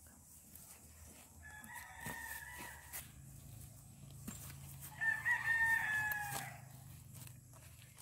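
A rooster crowing twice: a fainter crow about a second and a half in, then a louder one about five seconds in.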